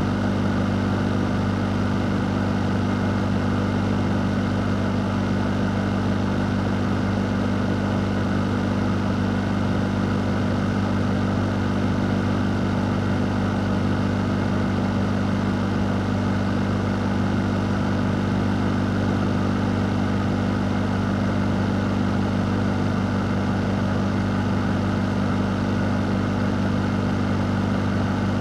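A fan running steadily: an unchanging rush of air over a low, constant motor hum.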